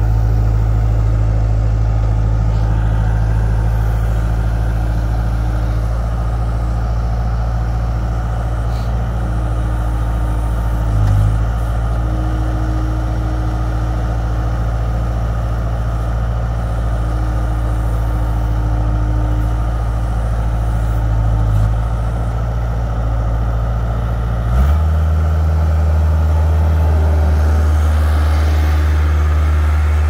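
2008 Bobcat S175 skid steer's four-cylinder diesel engine running steadily while the loader works. Its note briefly bumps twice and shifts abruptly to a different pitch about three-quarters of the way through.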